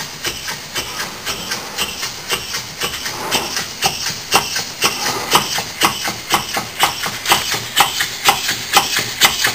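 Large model oscillating (wobbler) steam engine running on about 10 psi of compressed air at roughly 50 to 60 RPM. Its exhaust puffs in a quick, even rhythm of short hissing chuffs, a little louder from about halfway through.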